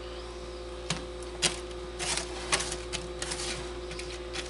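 Silicone spatula scraping and tapping on a metal sheet pan while roasted small potatoes and garlic are tossed in olive oil: irregular clicks and short scrapes, several a second in places.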